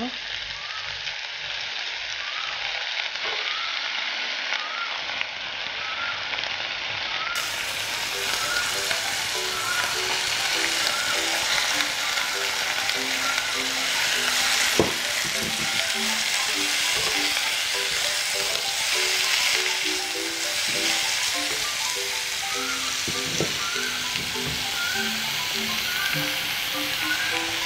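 Oil sizzling in a pan as shredded banana blossom fries with onions, tomatoes, green chillies and curry leaves, stirred now and then, with a sharp spatula knock about fifteen seconds in. Soft background music plays along.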